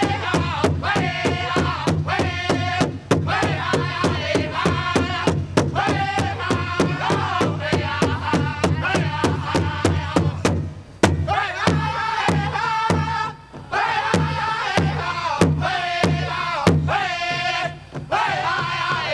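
Powwow drum group singing a jingle dress song: a large drum struck in a steady beat, about three strokes a second, under chanted singing by several voices.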